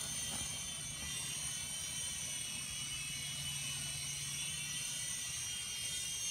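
Air Hogs Axis 200 toy quadcopter hovering, its small electric motors and propellers giving a steady high-pitched whine.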